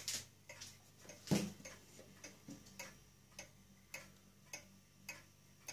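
Junghans pendulum wall clock from 1904–1914 ticking steadily, just under two ticks a second, with one louder knock about a second and a half in.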